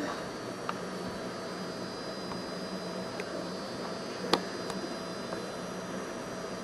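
Steady electrical hum with a background hiss. A few faint clicks come through, and one sharper click falls a little after four seconds in.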